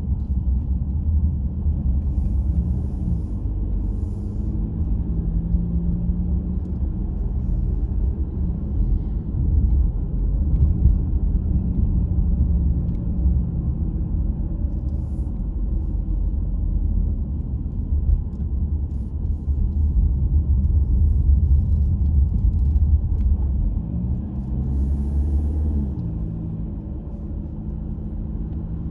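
Car on the move: a steady low rumble of engine and road noise, with the engine's pitch rising and falling as it speeds up and slows. A few brief hisses are heard near the start, in the middle and near the end.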